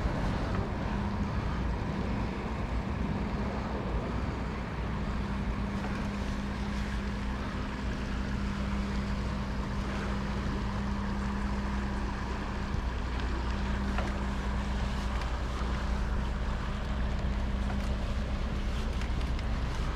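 Bicycle rolling along a paved path, with wind buffeting the camera microphone over the sound of the tyres, and a steady low hum that drops out now and then.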